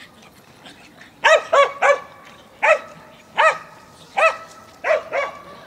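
A dog barking in a series of about eight barks: a quick run of three a little over a second in, then single barks spaced roughly evenly until near the end.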